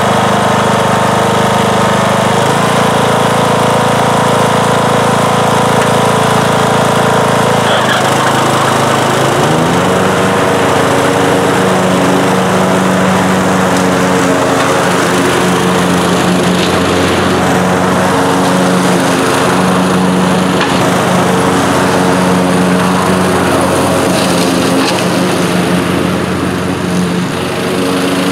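Troy-Bilt Hydro Horse riding mower with its Kohler Courage 20 HP engine, running steadily while mowing grass with the deck blades turning. The engine note shifts about eight seconds in, then holds steady.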